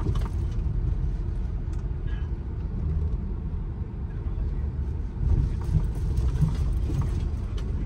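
Car being driven slowly: a steady low engine and road rumble, with a few faint clicks.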